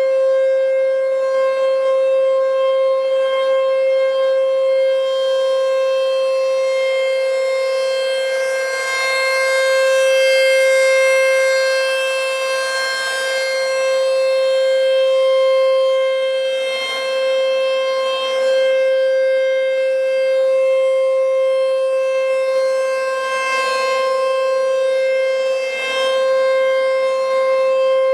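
American Signal T-128 outdoor warning siren sounding a steady alert: one held tone at a fixed pitch, rich in overtones, with no rise or fall. Its loudness swells and eases gently over several seconds.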